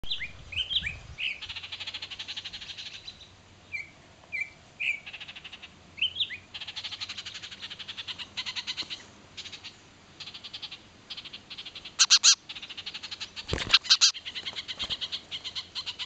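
Adult Baltimore orioles scolding with repeated rapid chattering rattles, mixed with short upward-sweeping whistled notes: alarm at a person near their fallen fledgling. Several sharp clicks and knocks come near the end.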